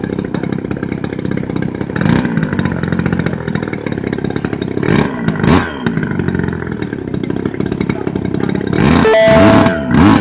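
55cc gasoline engine of a large RC model aeroplane running on the ground with the propeller spinning. It holds a steady speed and is revved up and back down several times, around two, five and nine seconds in.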